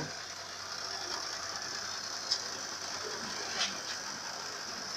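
Air conditioner running while being charged with R22 refrigerant: a steady mechanical whir with a high hiss, and a couple of brief clicks a little over two and three and a half seconds in.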